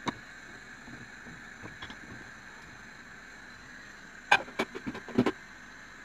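Whole boiled potatoes handled in a metal pot, giving a single click at the start and a quick cluster of sharp knocks about four to five seconds in, over a steady hiss.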